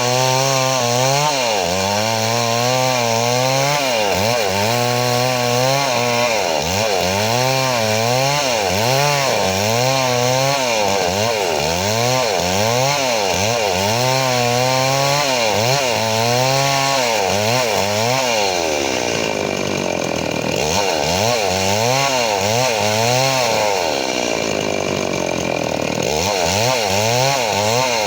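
Chainsaw engine running hard while cutting wood, its pitch dipping and climbing back again and again, about once a second.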